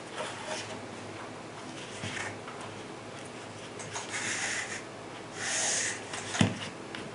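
Plastic cartridge tray full of brass rifle cartridges being handled on a mat: soft rustling and light clicks, with two brief swishes in the middle and one sharp knock about six and a half seconds in.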